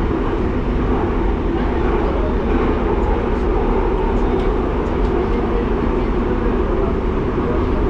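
Driverless metro train running, heard from inside the carriage as a steady, even rolling noise that stays mostly low in pitch.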